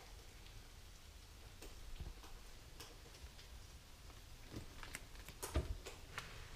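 Scattered faint clicks and taps of cats' claws and paws on a hardwood floor, at irregular intervals, with a cluster and a louder knock about five and a half seconds in.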